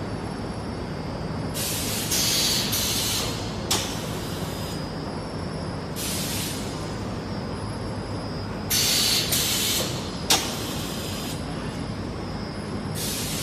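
Rubber profile extrusion and vulcanization line running with a steady machine hum. Four times it lets out a burst of loud hissing, each lasting up to about two seconds, and there are two sharp clicks, one about four seconds in and one about ten seconds in.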